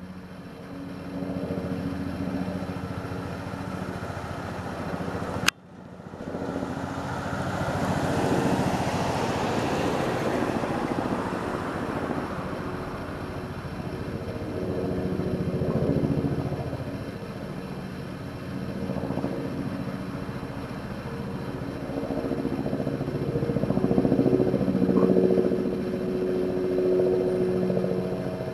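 Helicopter circling overhead: a steady drone of engine and rotor that grows louder and fades several times as it moves around. One sharp click about five and a half seconds in.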